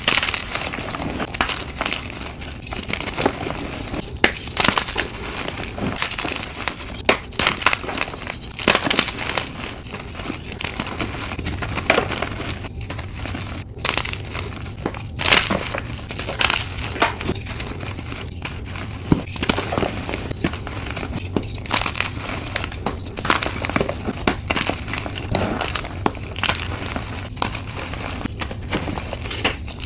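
Hands crushing and crumbling blocks of dyed chalk: an irregular, continuous run of crunches and crackles as the chalk breaks apart into powder.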